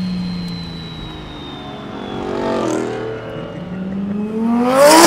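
Mercedes OM606 inline-six diesel with a hood-exit exhaust, heard from inside the car: running steadily, revved briefly about halfway through, then revved hard near the end, the pitch rising and falling, the loudest part.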